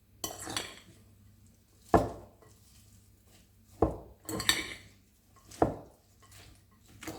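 Utensils knocking and scraping against a salad bowl while a salad is stirred and tossed: about six separate clatters a second or so apart, the sharpest about two seconds in.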